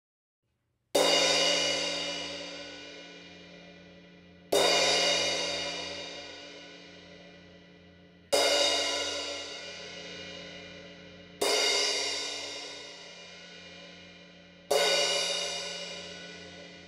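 Sabian APX crash cymbal, repaired by cutting the edge crack out as a smooth notch in the rim, struck five times with a soft mallet. Each strike swells into a bright shimmering ring that fades over three to four seconds before the next.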